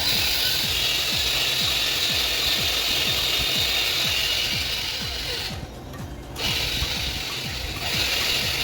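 Machine work on a motorcycle engine's cylinder bore: a steady, grating mechanical noise that starts suddenly, drops out for a moment about six seconds in, then resumes.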